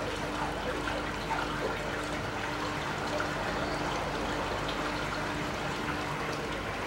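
Water trickling steadily, with a faint steady hum under it.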